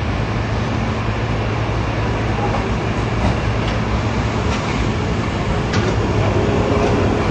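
Steady city street traffic rumble with a low engine hum from nearby vehicles.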